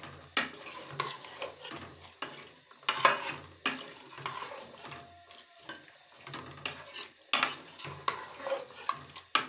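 Metal spoon stirring chopped raw turnips through hot masala in an aluminium pressure-cooker pot, with irregular scrapes and knocks against the pot and sizzling underneath.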